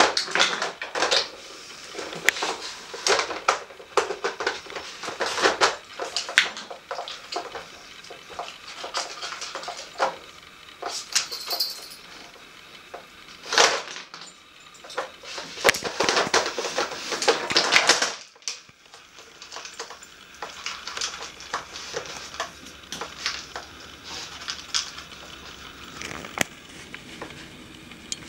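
Hard plastic of a dog treat puzzle clattering and clicking as a dog noses and paws at it, knocking its drawers and loose plastic pieces against the floor. The knocks come in irregular runs, with a long busy stretch of rattling about two-thirds of the way through.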